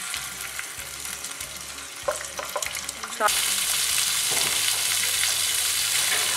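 Fish fillets sizzling as they fry flesh side down in hot ghee in a cast-iron skillet, the sizzle growing louder about three seconds in. A few short squeaks sound just before it swells.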